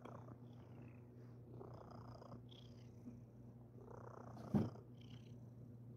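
Flame point Siamese cat purring right at the microphone: a steady low purr that swells with each breath about every two and a half seconds. A short, sharper sound about four and a half seconds in.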